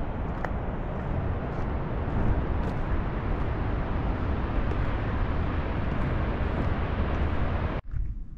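Wind buffeting the microphone, a steady rumbling rush with the most weight at the bottom. It cuts off suddenly near the end, leaving a quieter background with a few footsteps on the gravel track.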